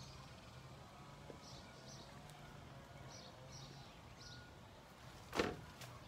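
Birds chirping faintly in short, scattered calls over a low steady hum, and a single sharp thump about five seconds in from a garden shovel being handled.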